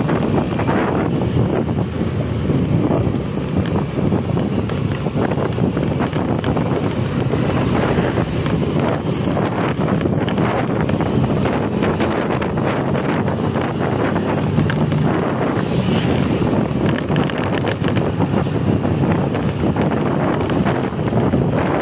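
Wind buffeting the microphone on a moving vehicle, over steady engine and road noise.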